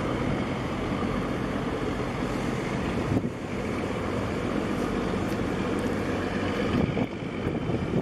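A marine engine drones steadily at a low pitch, with wind buffeting the microphone and water washing against the hull.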